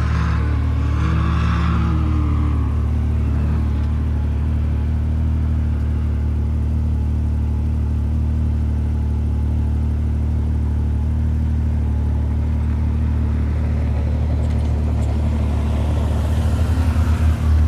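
A side-by-side UTV engine idling steadily close by. Another side-by-side revs in the distance at first, then grows louder as it drives past near the end, its engine pulsing briefly.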